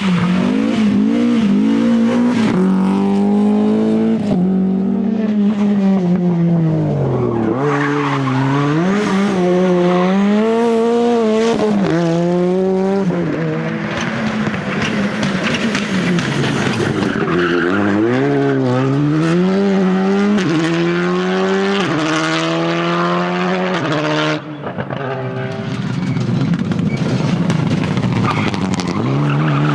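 Rally car engines at full throttle. The pitch climbs through each gear and drops sharply at every shift or lift, again and again. About 24 seconds in the sound breaks off suddenly, then picks up again.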